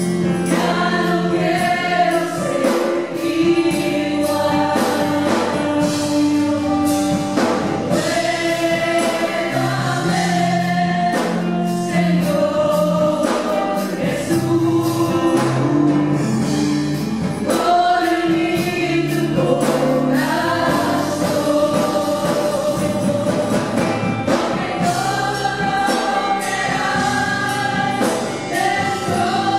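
A group of women singing a worship song together at microphones, in sustained melodic phrases over steady low accompanying notes.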